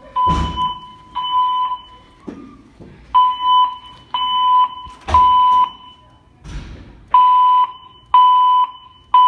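System Sensor fire alarm speaker-strobes sounding the temporal-three evacuation tone: three steady half-second beeps about a second apart, a pause, then three more, repeating. This pattern is the standard signal to evacuate the building. A few short thumps sound over it.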